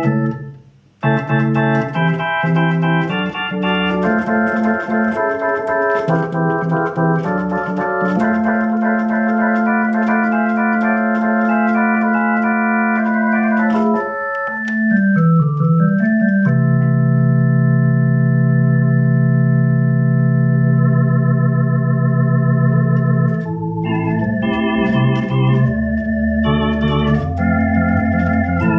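Elektronika EM-141 Venta electric organ (a Soviet Hammond-style drawbar organ) playing chords. It breaks off briefly about a second in and swoops down and back up in pitch about midway. A long held chord follows, then quicker chord changes near the end.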